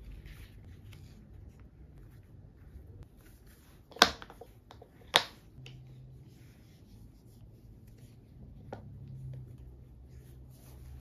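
Soft rubbing and handling as pink silicone covers are fitted onto a pair of Apple AirPods Max headphones. Two sharp clicks about a second apart near the middle are the loudest sounds.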